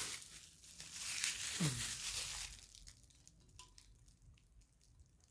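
Packaging crinkling and tearing as items are unwrapped, for about the first two and a half seconds, then quieter handling with a few light clicks.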